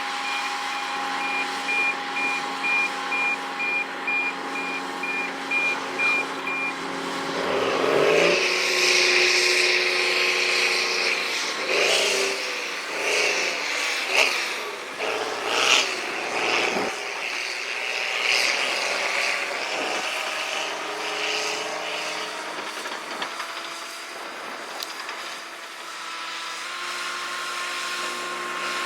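Bulldozer's diesel engine running. A rapid beeping alarm sounds for the first several seconds, and louder mechanical noise comes and goes in the middle.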